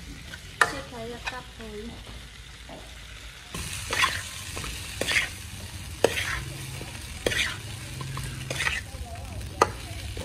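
Metal ladle stirring and scraping catfish pieces in spice paste around a metal wok, over a light sizzle of frying. In the second half the scrapes come about once a second.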